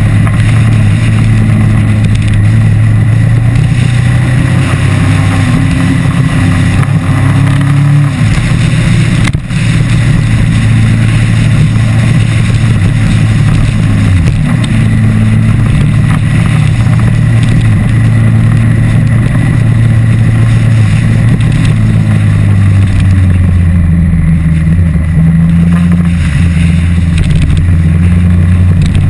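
Onboard sound of a moving motorcycle: the engine running steadily under way, its pitch changing a few times as the revs change, over a constant rush of wind and road noise.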